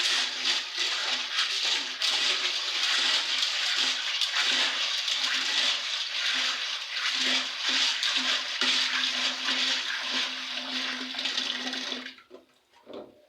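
Water pouring steadily into a container to wash beans, stopping abruptly about twelve seconds in.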